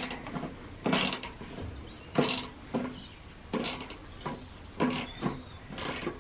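Ratchet wrench tightening the bolts that fasten an engine to a go-kart's metal chassis: short bursts of ratchet clicking, roughly one a second.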